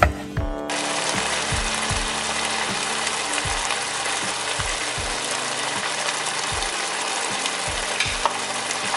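A knife chops raw beef on a wooden board for a moment at the start. Then beef and pineapple cook in a red sauce with a steady sizzle, over background music with a light low beat.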